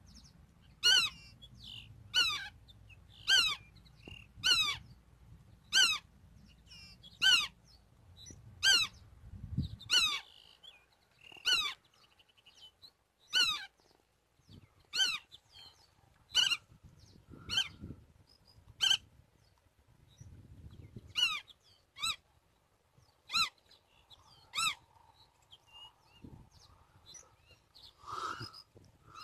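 Black-tailed godwit calling over and over, a sharp call roughly once every second and a half, kept up through the whole stretch with a brief pause in the middle.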